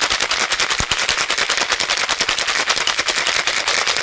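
Ice rattling hard inside a copper cocktail shaker shaken fast and steadily, a dense even run of sharp knocks, as a cocktail is shaken to chill it.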